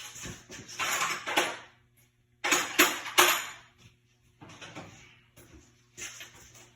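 Steel adapter pieces of a disc brake caliper piston tool kit clinking and rattling against each other as they are sorted by hand, in four short bunches with brief pauses between them.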